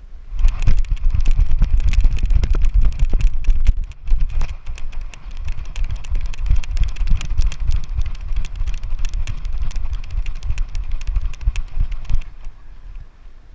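Jack Russell terrier running hard during fetch, heard close up as a rapid run of footfalls with thudding jolts and clicks. It starts about half a second in, eases for a moment around four seconds, and stops about twelve seconds in.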